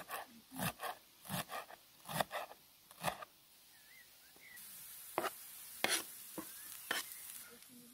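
Kitchen knife chopping fresh herbs on a plastic cutting board: a quick run of knocks for about three seconds. Then come a few separate sharp taps as the knife scrapes the chopped herbs off the board, over a faint steady hiss.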